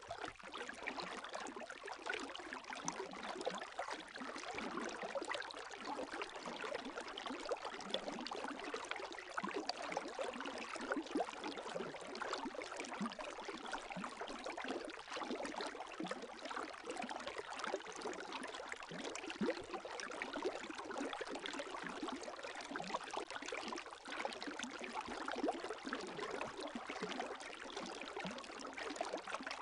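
Gentle lake waves lapping: a steady wash of water with many small splashes and trickles.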